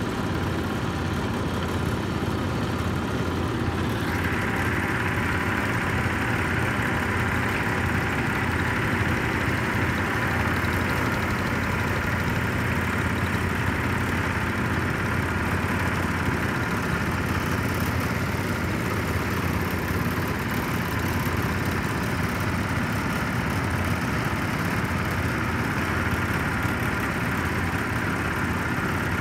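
Engines of several vintage garden tractors running steadily as they drive together, the tractor being ridden loudest. Its sound grows sharper about four seconds in.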